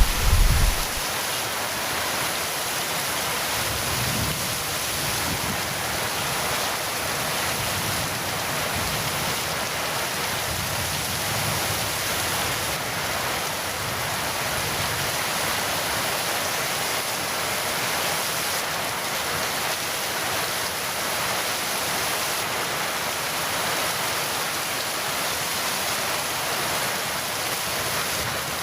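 Heavy rain falling steadily in a thunderstorm, an even hiss, with the tail of a thunder rumble dying away in the first second.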